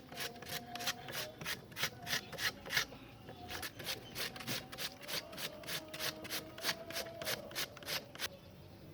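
A raw potato being grated: rhythmic rasping strokes, about three a second, with a short pause about three seconds in.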